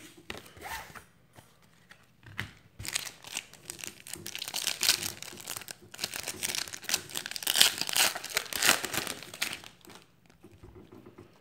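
Foil trading-card pack wrapper being torn open and crinkled by hand. The crackling runs from about two seconds in until about ten seconds in, loudest a little before the end.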